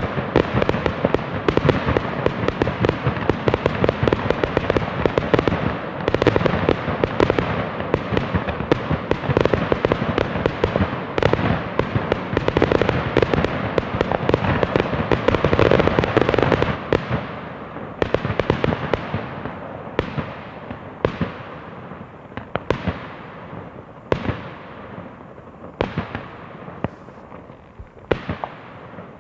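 Fireworks going off: a dense, continuous barrage of bangs and crackling for about sixteen seconds, then it thins out into separate bangs about one a second, each trailing off.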